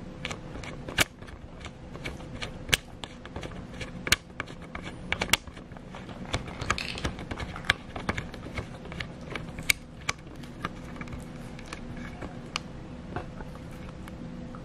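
Sulcata tortoise eating chopped cucumber and green beans from a ceramic dish: irregular sharp crunching clicks as its beak bites into the vegetables, with several louder bites in the first half.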